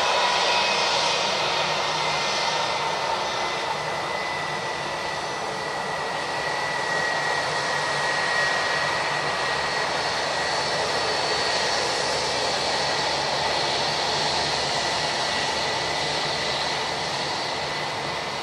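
Jet airliner's turbofan engines running: a steady rush of engine noise with a high whine held at nearly one pitch.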